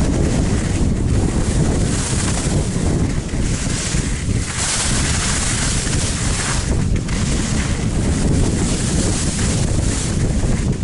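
Wind buffeting the microphone of a camera carried by a skier heading downhill, over the hiss of skis sliding on packed snow. The hiss swells and fades every few seconds.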